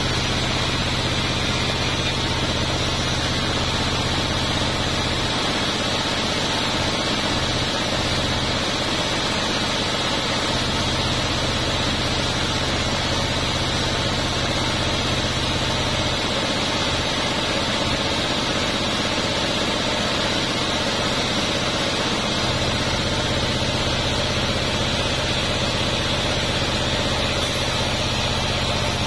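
Large band sawmill running steadily, with a constant low hum and a steady high whine, as a durian wood slab is fed through its blade.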